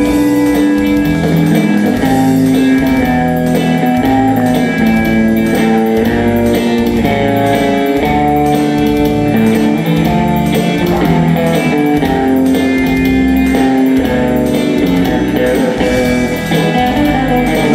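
A band playing an instrumental break between sung verses, with a guitar melody over bass and a steady beat.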